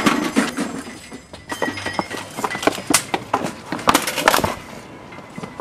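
Irregular clanks and knocks as a metal gate is grabbed and rattled, followed by hurried footsteps on a paved path.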